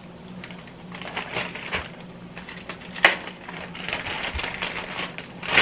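Plastic zipper bag crinkling and rustling as metal tongs dig into it, with light clicks and one sharp click about three seconds in.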